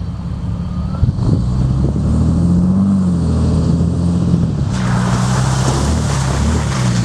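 Jeep Cherokee's engine running as it drives off-road, its low hum rising and falling in pitch with the throttle. A steady rushing noise joins about five seconds in.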